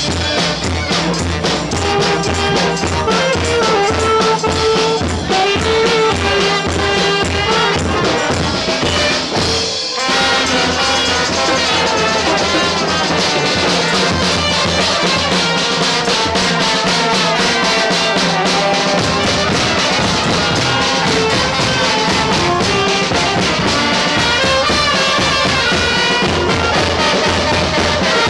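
Festive street brass band (banda) playing live: trumpets and saxophones over drums and cymbal with a steady beat. The music drops out for an instant about ten seconds in and carries straight on.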